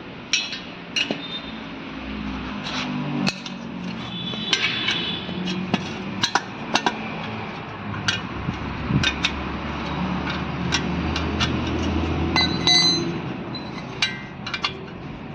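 Spanner and metal parts clinking while the two 10 mm bolts of a rear drum-brake wheel cylinder are being undone: sharp, irregular clicks and taps, with a brief ringing metallic tink late on.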